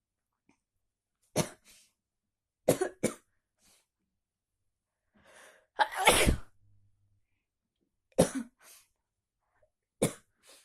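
A person with a heavy head cold sneezing and coughing in about five sudden explosive bursts, several followed by a smaller second burst. The loudest comes about six seconds in, after a breathy build-up.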